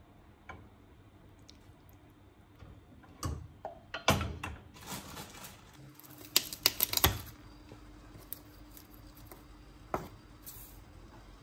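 Kitchen food-preparation sounds: utensils and containers handled in scattered clicks and knocks, with a quick burst of clatter a little past the middle and a single knock near the end. A faint steady hum comes in about halfway.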